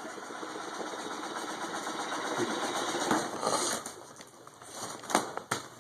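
Battery-powered toy jackhammer running: a fast mechanical buzzing rattle that lasts about four seconds and then stops. A couple of light knocks follow near the end.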